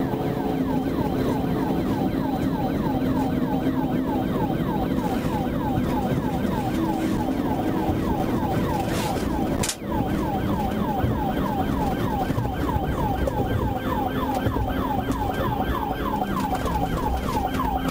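Police cruiser siren in a fast yelp, its pitch sweeping rapidly over and over, over the cruiser's engine and road noise during a high-speed pursuit. There is a brief click and dropout a little over halfway through.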